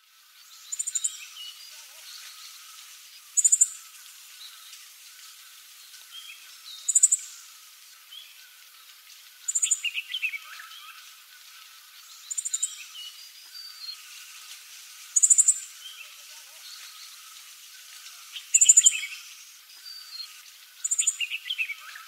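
Siberian flycatcher singing: about eight short, very high, thin phrases, each a quick run of notes, every few seconds, with softer lower chirps between them. A faint steady chatter runs underneath.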